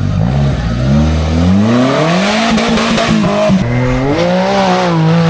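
Off-road vehicle engine revving hard under load: the pitch climbs over about two seconds, falters several times in the middle, then rises again and holds high near the end.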